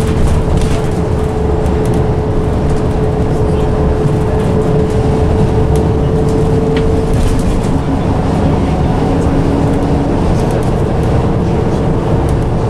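Volvo B10M-55 bus under way, heard inside the passenger saloon: its underfloor diesel engine and ZF Ecomat automatic gearbox run with a steady low drone and a steady whine. A second, lower whine joins about halfway through, and faint rattles come and go.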